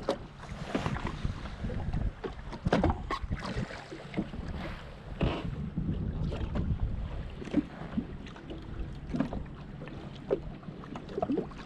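Small waves slapping and splashing irregularly against the hull of a drifting jet ski, over a low rumble of wind on the microphone.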